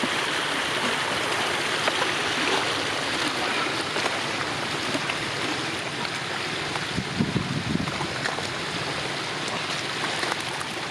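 Floodwater rushing steadily, with a few brief louder splashes about seven seconds in.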